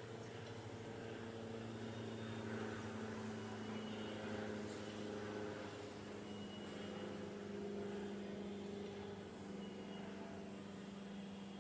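Single-engine propeller light aircraft flying overhead, its engine and propeller droning steadily, the pitch shifting slightly as it passes.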